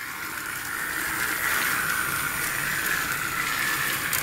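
Battery-powered toy Thomas the Tank Engine running around a plastic track: a steady motor whir with the wheels on the track, slowly getting louder.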